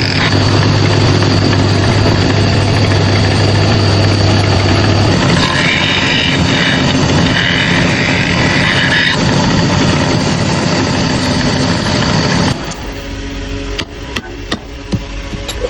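A power tool's motor running steadily and loudly, then stopping abruptly about twelve seconds in, followed by a few sharp knocks.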